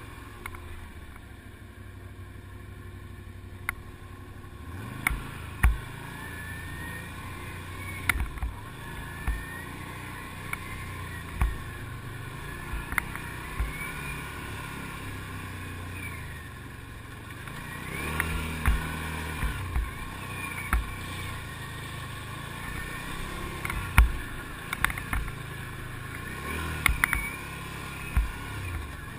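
ATV engine running under changing throttle, its note rising and falling, with sharp knocks and rattles as the machine jolts over bumps in the trail.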